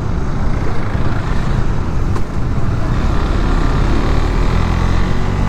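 Motorcycle engine running at steady cruising speed under a rush of riding wind and road noise.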